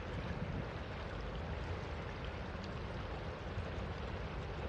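Steady rush of a fast-flowing river with a low rumble underneath, from a freight train rolling slowly on a steel truss railroad bridge.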